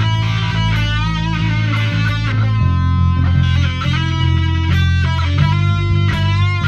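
Guitar being played solo: held low notes with higher notes over them that waver with vibrato, the low note changing twice.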